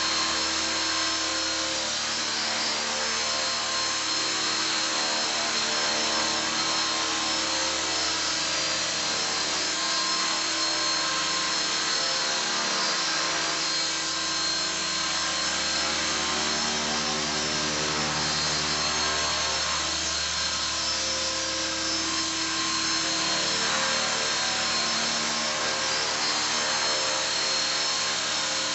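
Esky King electric RC helicopter hovering: a steady whine of the motor and spinning rotors, its pitch wavering slightly as it holds in place.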